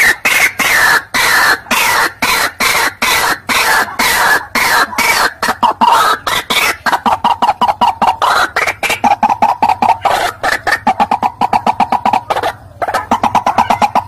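White-breasted waterhen (kareo padi, 'ruak-ruak') giving its loud, rapid, repetitive croaking call, a fast unbroken run of harsh notes. The notes sweep up and down in pitch at first, then settle into a steadier repeated note, with a brief break near the end.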